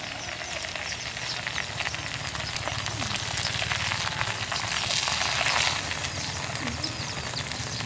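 Hot oil in a metal pot sizzling and crackling steadily as a whole rat is dipped in and stirred, getting a little louder about five seconds in.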